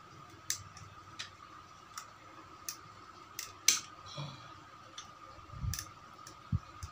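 Irregular sharp metallic clicks and ticks as pliers grip and twist the small gear on a small DC motor's shaft to pull it off, the gear heated first to loosen it. A couple of soft low thumps come near the end.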